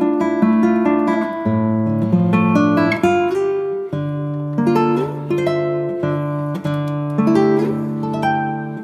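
Background music: an acoustic guitar plucking a quick melody of short, ringing notes.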